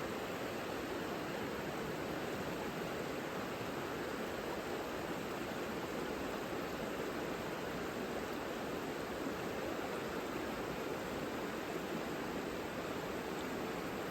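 Savica river flowing: a steady, even rush of water with no birdsong or other events standing out.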